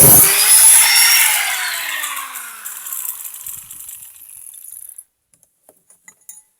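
Angle grinder cutting through the steel of an old garden hoe; about a quarter second in it is released. The cutting noise stops at once and the disc spins down with a falling whine that fades away over about five seconds.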